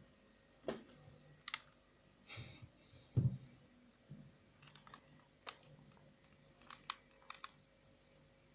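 Scattered light clicks and taps with a duller knock about three seconds in, as small hard parts and tools are handled and set down on a work surface.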